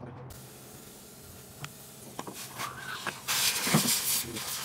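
A few light clicks of metal engine parts being handled, then a loud hiss lasting about a second near the end.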